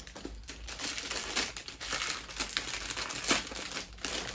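Packaging crinkling and rustling as it is handled, in a run of irregular crackles.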